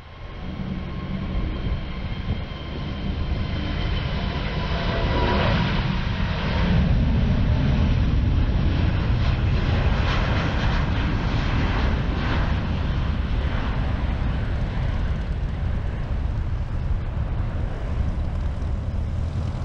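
Airbus A380-800's four Rolls-Royce Trent 900 turbofans at takeoff power during the takeoff roll and climb-out. A loud, deep rumble builds over the first several seconds and then holds steady, with a faint high whine over it at first.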